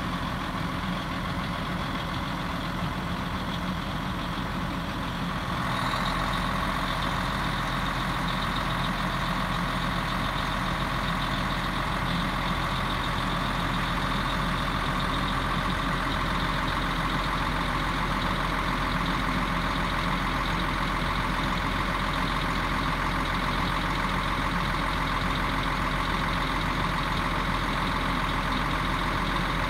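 A DAF XF lorry's diesel engine runs steadily, driving the hydraulics of its lorry-mounted loader crane as the crane lifts a load. About six seconds in, the sound gets louder and a steady whine comes in and holds.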